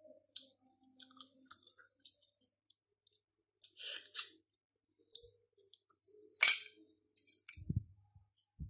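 Eating steamed mud crab by hand: scattered small clicks and crackles of shell pieces being picked apart, a wet sucking smack about four seconds in, and a sharp click about six and a half seconds in, the loudest sound. A couple of dull thumps come near the end.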